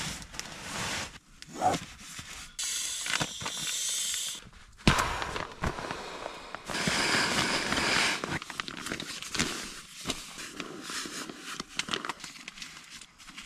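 Nylon sleeping-bag fabric rustling and crinkling in irregular swishes as the bag is stuffed into its sack and bedding is packed away, with a few louder stretches of swishing.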